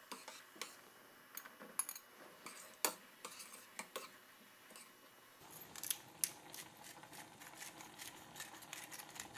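Faint crackling and popping of octopus, wine and cherry tomatoes bubbling in a stainless steel frying pan, with a few sharper clicks in the first half. About five seconds in, the bubbling becomes denser as the pan comes back to the boil.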